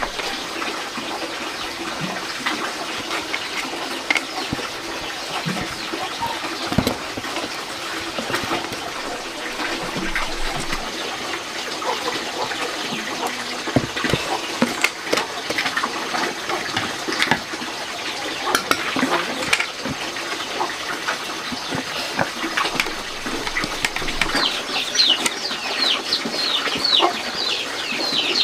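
Chickens clucking amid scattered knocks and clatter, with a quick run of high, falling peeps near the end.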